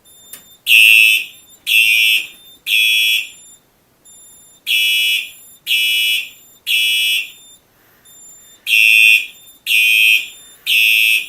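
Simplex 4903-9236 fire alarm horn sounding the temporal-three evacuation pattern: three loud blasts about a second apart, a short pause, then three more, repeating. This is a Simplex 4010 system in alarm.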